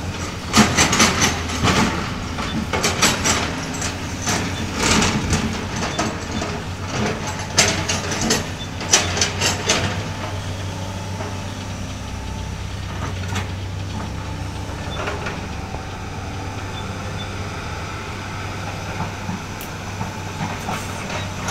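Sany SY215C hydraulic excavator's diesel engine running steadily throughout. For about the first ten seconds, repeated clanks and scrapes of the bucket working the muddy ground sound over the engine; after that, mostly the steady engine hum is left.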